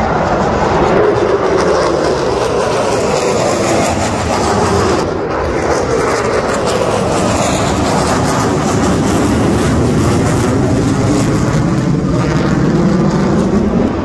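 Fighter jet flying overhead: loud, steady jet engine noise whose tone slowly sweeps up and down as the aircraft passes.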